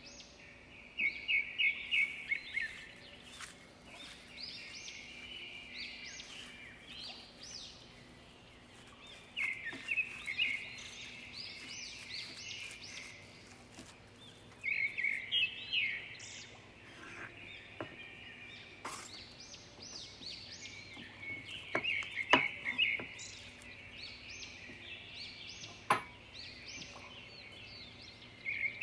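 Small birds chirping in quick trilled runs every few seconds over a faint steady hiss, with a few sharp clicks in the second half.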